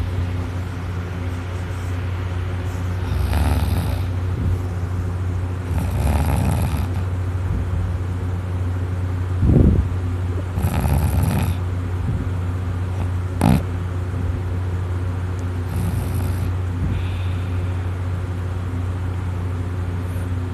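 A person in a drunken sleep snoring heavily, a loud rasping snore every few seconds in time with the breathing, over a steady low hum.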